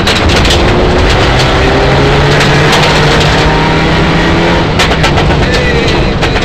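Mitsubishi Lancer Evolution IX rally car's turbocharged four-cylinder engine pulling at high revs, heard from inside the cabin, with gravel clattering against the underside. About four and a half seconds in the engine note drops away as the driver comes off the throttle.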